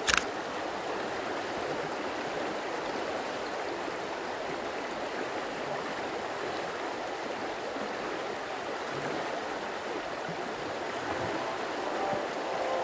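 Parvati River rushing over stones in a fast, shallow stretch: a steady hiss and wash of water. A brief sharp swish sounds at the very start.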